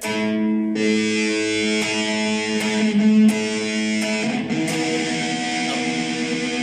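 Dean Razorback electric guitar: a chord is held and re-picked several times, then about four seconds in a different chord further up the neck rings on. This demonstrates poor intonation, with notes going out of tune higher on the neck because the bridge saddles are set wrong.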